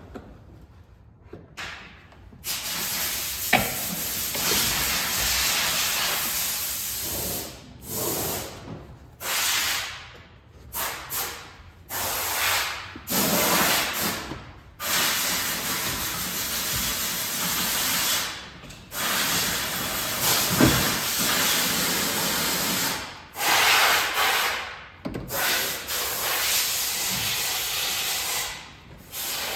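Loud hissing that starts and stops again and again, in bursts of one to several seconds each.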